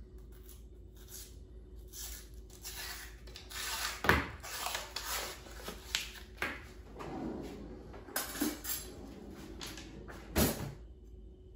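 Paper label being peeled and torn off a cardboard tube of refrigerated cinnamon roll dough, with rustling and crinkling. There is a sharp click about four seconds in and a louder knock near the end as a spoon is pressed against the tube's seam.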